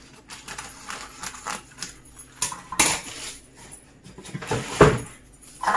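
Metal scissors snipping through baking parchment with the paper rustling, then set down on a granite countertop with a clatter. A dull thump comes about a second before the end.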